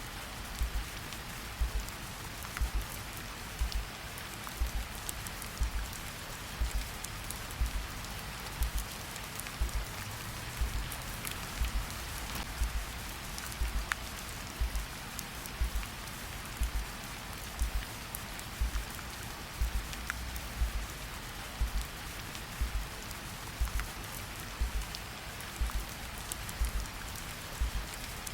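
Steady rain falling, with a slow heartbeat over it: low double thumps, lub-dub, about once a second, louder than the rain.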